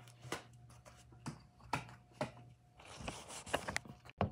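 Scattered taps and clicks with a short rustle, the handling noise of a phone being touched and adjusted at close range, over a faint steady low hum.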